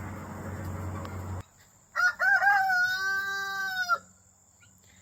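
Rooster crowing once, about two seconds in: a few short rising notes, then one long held note that ends sharply. Before it, a steady rushing noise cuts off abruptly.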